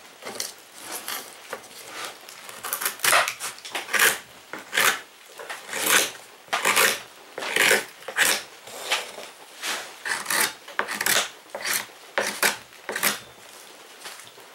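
Repeated rasping, scraping strokes, about twenty of them at roughly one every two-thirds of a second, faint at first and louder from about three seconds in.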